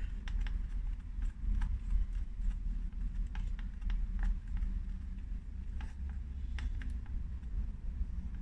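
Scattered, irregular light clicks and taps of small RC-car parts and tools being handled while a sway bar is fitted, over a steady low rumble.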